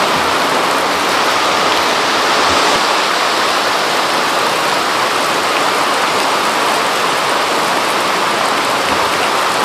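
Steady, loud rush of running water, like a stream or small waterfall pouring into a pool.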